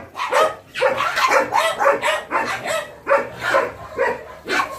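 Dogs barking over and over, about three short barks a second, overlapping as if from several dogs.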